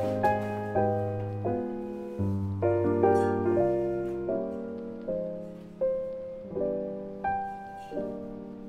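Slow, gentle background piano music: single notes and soft chords, each struck and left to fade.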